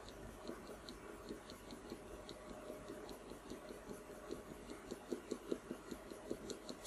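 Coloured pencil scratching short, quick strokes across drawing paper, making faint, rhythmic ticks about four or five a second that grow a little more distinct in the second half.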